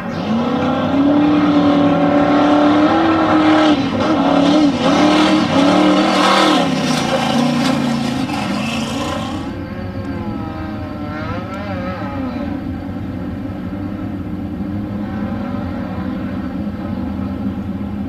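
Off-road race truck engines revving and accelerating hard around a dirt course, the pitch rising and falling with each shift and throttle change. About nine and a half seconds in, the sound cuts abruptly to a quieter, more distant engine running on.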